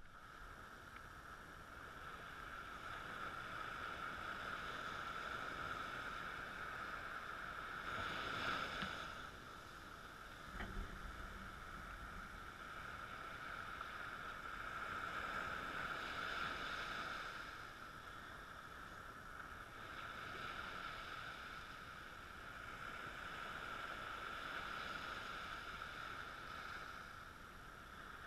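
Small waves breaking and washing up a sandy beach, the wash swelling and fading every several seconds over a steady hiss. A single soft knock about a third of the way through.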